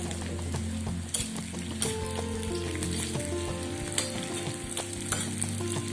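Sliced shallots and curry leaves frying in hot coconut oil with mustard seeds, sizzling steadily, as a spoon stirs them and knocks against the pan a few times. The shallots are being fried until reddened for the curry's tempering.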